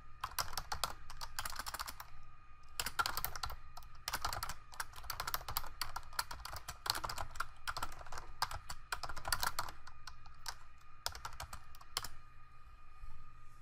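Typing on a computer keyboard: keys clacking in quick runs with short pauses, stopping shortly before the end. A faint steady hum lies underneath.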